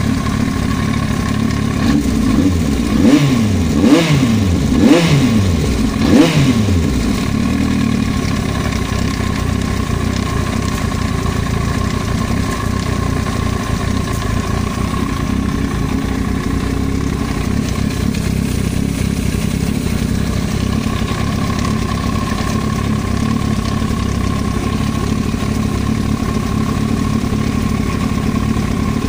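Yamaha YZF-R1 inline-four engine idling, blipped four times in quick succession early on and then settling back to a steady idle. It is run to let a knock from the cylinder head be heard, which the owner takes for an extraneous noise in the engine head.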